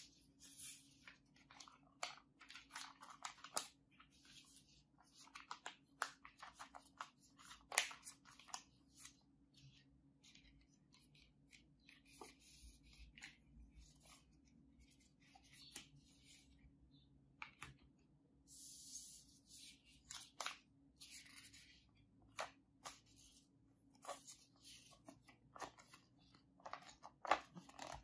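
Paper and thin card being handled and unfolded: an irregular string of short crackles, rustles and clicks as the printed documentation and fold-out guide are shuffled and opened.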